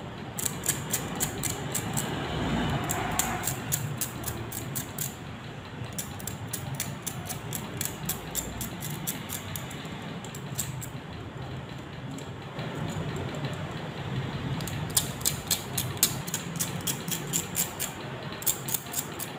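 Pliers nibbling the edge of a cut glass spectacle lens, chipping off small pieces of glass. It makes rapid crunching clicks, several a second, in runs with short pauses between them.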